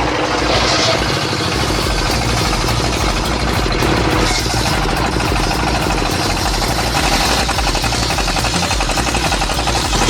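Engine-driven log-cutting machinery running loud and steady, with a rapid rattling pulse.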